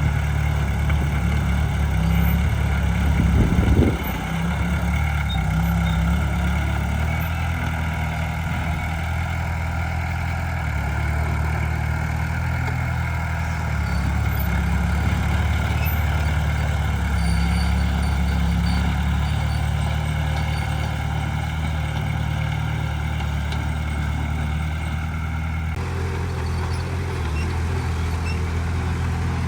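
Heavy diesel earthmoving machinery running steadily, a bulldozer working with dump trucks. There is a low thump about four seconds in, and the engine sound changes abruptly near the end.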